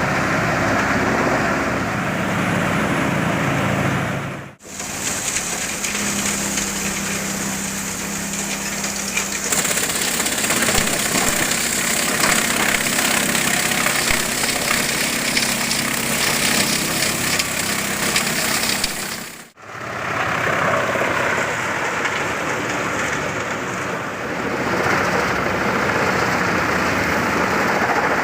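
Large wood chipper working: a heavy engine runs steadily under the dense crackling rattle of wood being chipped. The sound cuts out abruptly twice and changes character between takes; the middle section is brighter and more rattly.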